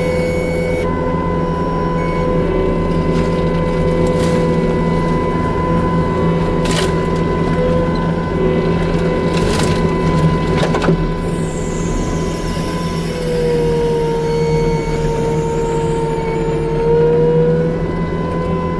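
New Holland C327 skid steer running steadily, its engine and hydraulics giving a constant hum with a few sharp knocks in the middle; a higher tone dips in pitch for a few seconds near the end.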